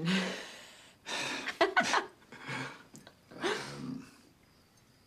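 A person laughing breathily: four or so huffing exhalations with short voiced bits. Two sharp clicks come about halfway through.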